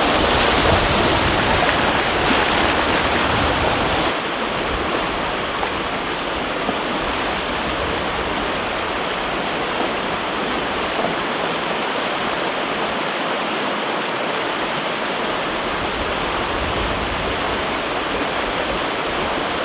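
White water rushing through a river rapid: a loud, steady rush of water. A deep rumble under it drops away about four seconds in.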